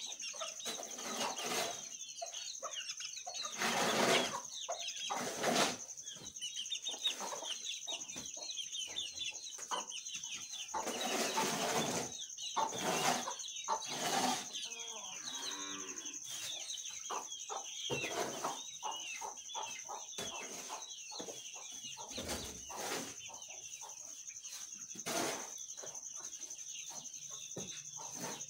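Aseel chickens clucking, with a few brief noisy strokes that fit wing flaps and a shovel scraping a concrete floor. A steady high-pitched tone sounds underneath.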